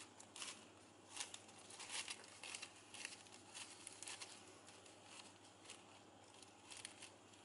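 Faint, scattered rustling and crinkling of shiny ribbon as hands pull the woven strands tight around a ribbon rosette.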